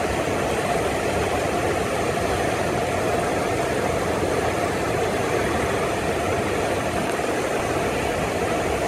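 Fast-flowing mountain river rushing steadily over rocks.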